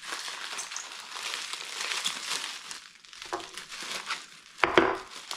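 Packaging being unwrapped: irregular crinkling and crackling of wrapping material as it is pulled and handled, with a louder crackle near the end.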